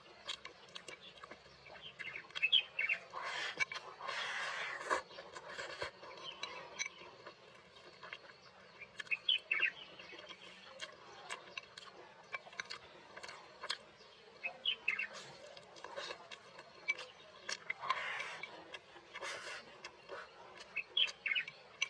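Close-up eating sounds: wet chewing and lip-smacking, sharp clicks of wooden chopsticks against a ceramic bowl, and a few bursts of slurping as rice and braised meat are shoveled from the bowl's rim into the mouth. A few short high bird chirps sound now and then.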